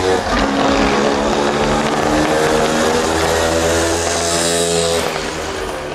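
Fireworks going off close by: a continuous hissing rush with a steady droning hum that shifts pitch every second or so, and bright crackling toward the end.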